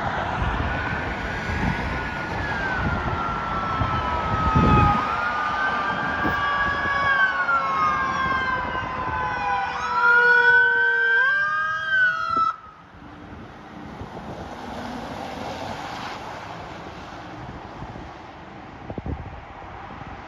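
Several emergency vehicle sirens sound at once, wailing in slow sweeps up and down, with faster rising yelps near the ten-second mark. They cut off abruptly about twelve and a half seconds in, leaving a quieter steady hiss of wind and traffic.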